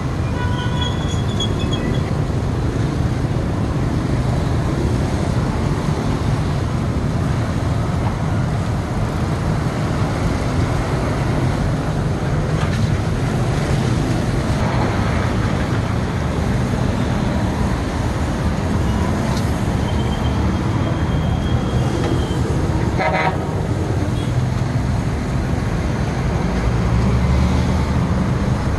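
Steady street traffic noise from passing motorbikes and trucks, with short vehicle horn toots near the start and once more later on.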